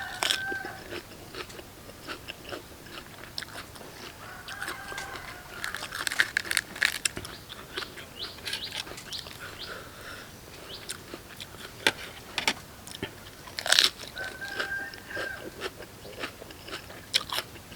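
Close-up crunching and chewing of crisp raw vegetables, with sharp bites coming at irregular intervals; the loudest crunch comes about 14 seconds in.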